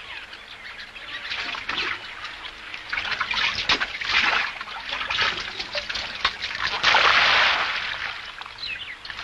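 Water splashing and pouring in several surges, the longest about seven seconds in, with birds chirping.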